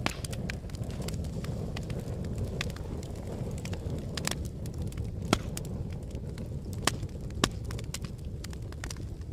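Wood fire crackling: a steady low roar of flames with irregular sharp pops and snaps, a few louder ones past the middle.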